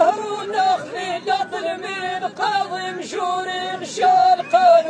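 A group of men singing a chanted verse of Amazigh sung poetry together, in long held notes that break and restart every half second to a second.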